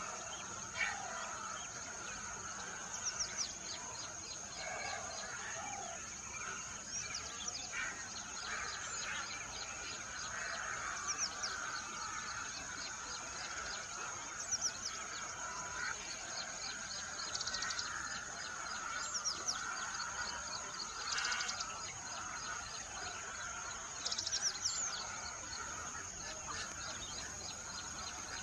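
Small songbirds chirping, with clusters of short, quick, high chirps over a steady high-pitched background tone.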